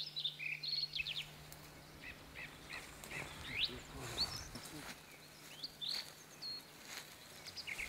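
Small birds chirping faintly and on and off, short single notes scattered through the quiet.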